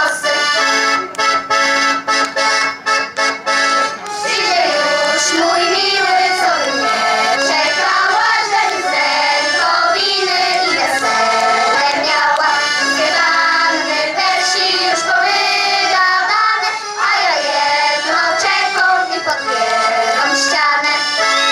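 A children's folk choir singing a folk song in chorus, with instrumental accompaniment.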